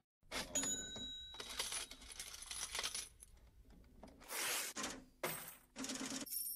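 Coins dropping and clinking on a hard surface in several separate falls, one ringing with a clear metallic tone near the start.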